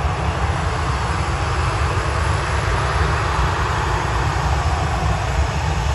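Jet engines of a Ryanair Boeing 737 running on the runway: a steady rumble and roar that swells slightly in the middle.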